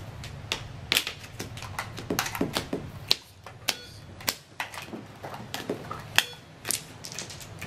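Board game being played: irregular sharp clicks and taps of Monopoly pieces and dice on the board and table, along with button presses on the Monopoly electronic banking unit.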